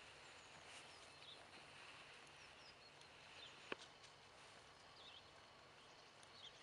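Near silence outdoors: faint birds chirping now and then over a soft background hiss, with one sharp click a little past halfway.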